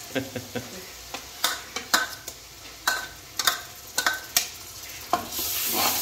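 A metal spoon stirring frying masala of ginger-garlic paste and green chillies in a large karahi, clanking against the pan over and over with a short metallic ring. The sizzling of the oil swells louder near the end.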